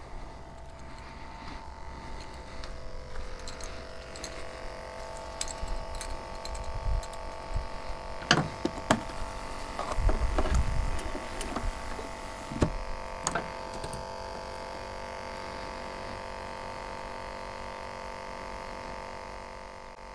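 Small battery-powered bait aerator on a live-shrimp cooler running with a steady buzzing hum. A few sharp clicks and knocks come in the middle as the cooler lid and a dip net are handled.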